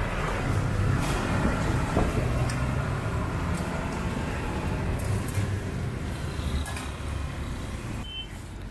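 Steady low rumble of street traffic with scattered clinks and scrapes of steel tongs against a stainless steel bowl. A brief high beep near the end.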